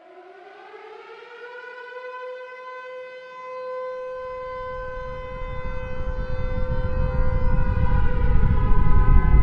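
Civil defence siren winding up and then holding a steady wail. From about four seconds in, a deep rumble builds beneath it and grows steadily louder: the onset of a nuclear explosion sound effect.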